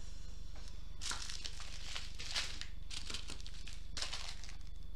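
Small plastic bags of diamond-painting drills crinkling as they are handled, a run of quick crinkles from about a second in until near the end.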